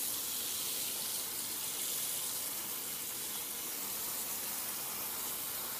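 Bathroom sink tap running, a steady rush of water into the basin.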